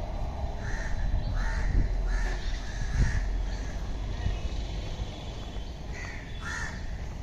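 Crows cawing repeatedly: a string of short calls in the first three seconds and two more near the end, over a steady low rumble.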